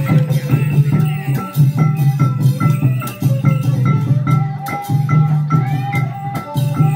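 Traditional Khmer festival music: long hand drums and rattling percussion beating steadily under a melody of short, repeated high notes.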